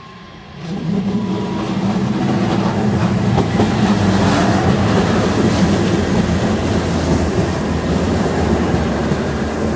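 AKN commuter train passing close by at a level crossing. The running noise of the railcars and wheels on the rails rises sharply about half a second in and stays loud.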